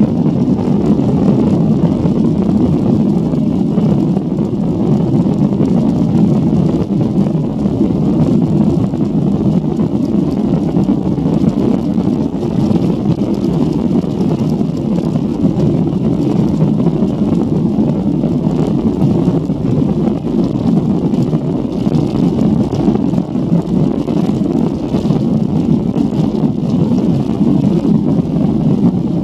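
Jet airliner heard from inside the cabin as it rolls along the runway for takeoff: a loud, steady, deep rumble of engines and wheels that keeps the same pitch throughout.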